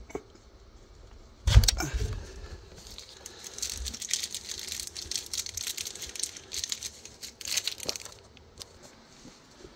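A knock about a second and a half in, then several seconds of close clicking, rattling and crinkling that stops near the end.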